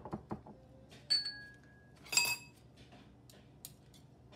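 Metal kitchen utensils knocking and clinking against glass dishes: a few light knocks, then two ringing clinks about a second apart, the second louder.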